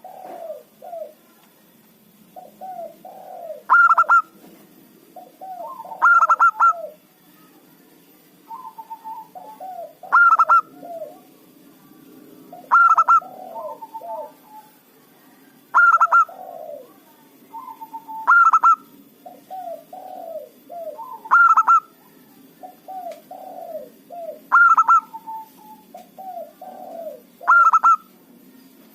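Zebra dove (perkutut) cooing in full song: repeated phrases of soft low coos, each ending in a louder, higher note, about every three seconds.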